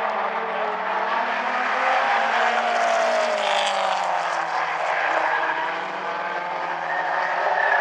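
Several mini stock race cars running at racing speed on an oval, their engine notes overlapping, with one engine note falling in pitch about three seconds in as a car goes by.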